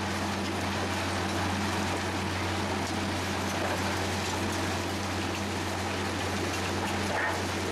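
Ballast regulator working along the track: a steady low engine drone under a continuous scraping rattle of ballast stones pushed by its side plough.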